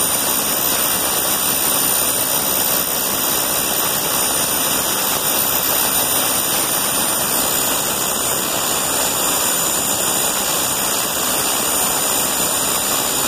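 Rotorway JetExec's turbine engine running steadily on a ground test: a loud, even rushing noise with several steady high-pitched whines, one more whine joining about halfway through.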